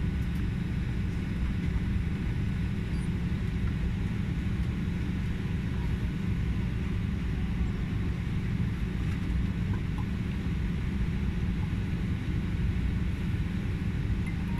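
Steady low rumble and hiss inside an Embraer E-190 airliner's cabin while it stands at the gate, with faint steady whining tones above it.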